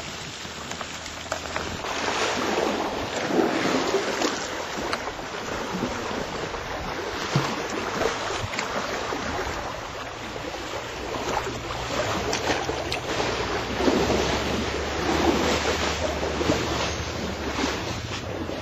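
Rushing, sloshing water noise that swells and eases every second or two as an elephant wades through a muddy river, mixed with wind rumbling on the microphone.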